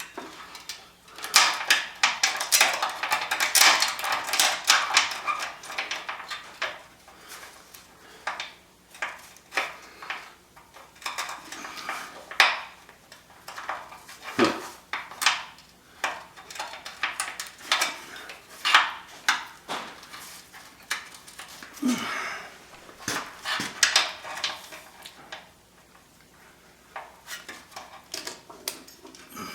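Ratchet strap being cranked to pull a front suspension control arm up into place, its ratchet clicking with metallic clanks. The clicks are densest in the first few seconds, then come in scattered single clicks and short runs.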